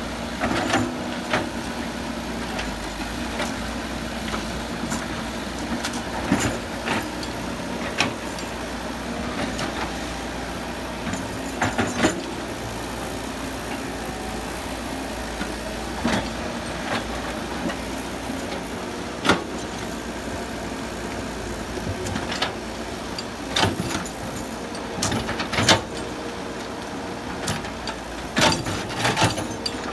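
Excavator's diesel engine running steadily while it works, with frequent sharp knocks and clanks, several close together near the end.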